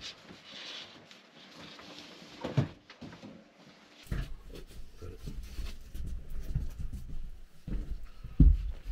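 Scattered knocks and thumps of things being handled in a small room, over a low rumble in the second half, with one loud thump about eight and a half seconds in.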